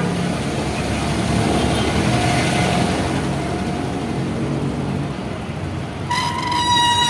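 Close-by street traffic, with a bus engine running alongside. About six seconds in, a vehicle horn sounds one long, steady blast.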